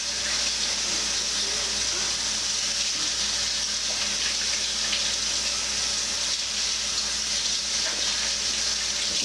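Water running from a tap into a sink while slime-sticky hands are washed under it: a steady hiss of flowing water that cuts off near the end.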